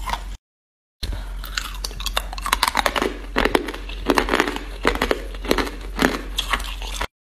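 Hard clear ice being chewed close to the microphone: a rapid series of sharp crunches and crackles, broken by a short dead-silent gap about half a second in.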